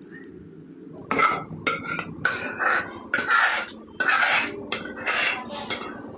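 Metal ladle scraping and stirring in a cooking pot, in a run of separate strokes about half a second each, starting about a second in.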